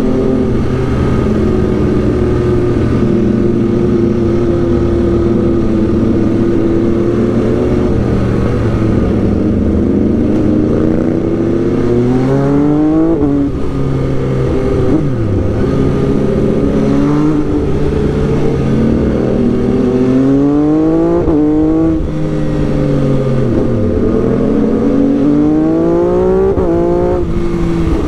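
A sportbike engine heard from the rider's seat, first cruising at a steady note. From about ten seconds in it accelerates several times, its pitch climbing and dropping back at each gear change, with a couple of deeper dips as the revs fall off between pulls.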